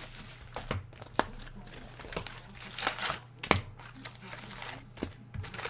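Trading card pack wrappers being torn open and crinkled by hand, with scattered sharp crackles and rustling over a steady low electrical hum.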